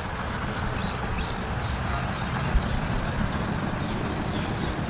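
Steady low rumbling noise with no clear pitch or rhythm.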